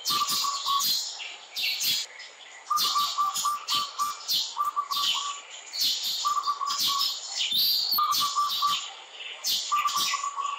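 Birds chirping: many sharp, high calls over a short, low, rapidly pulsed trill that repeats every one to two seconds.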